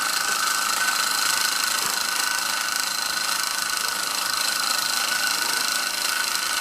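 Ernest Plank upright toy steam engine running fast with no load: a steady whirring hiss with a constant high note over it. Some steam is escaping around the piston.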